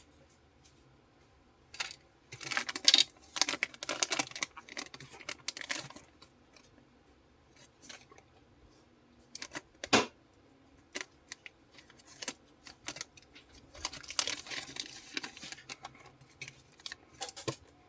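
Small metal tools and phone parts clicking, scraping and clattering against a work surface, in two busy spells with one sharp click between them.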